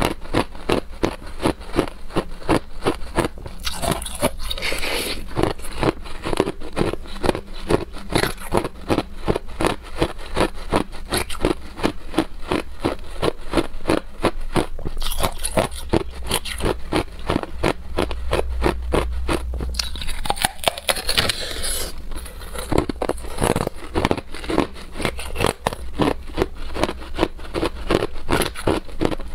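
Hard clear ice being chewed close to the microphone: a steady run of sharp crunches, about three a second, with a few louder, longer scraping bites into the ice block.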